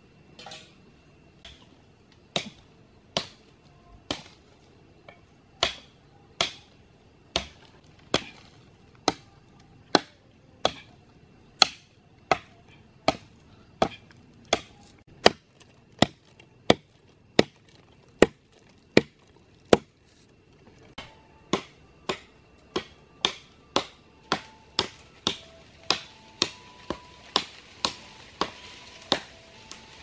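A blade chopping in a long series of sharp strokes, about one a second, pausing briefly about two-thirds through and then coming quicker near the end.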